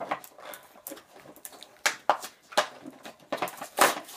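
Irregular clicks and short rustles of hands handling a packaged Hot Wheels toy monster truck and the small toy trucks on a wooden table, busiest near the end.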